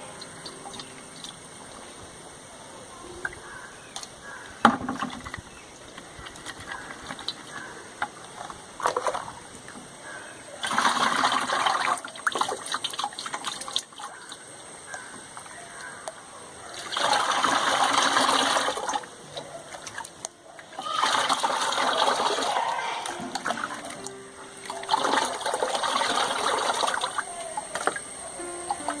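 Watery clay slurry being poured and sloshed through a sieve into a bucket: quiet trickling broken by four louder stretches of splashing and pouring, each two to three seconds long. A single sharp knock comes about five seconds in.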